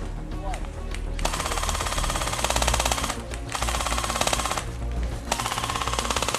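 Airsoft rifle firing on full auto in three long bursts, each a fast, even rattle of shots; the first starts about a second in and the last runs until the end.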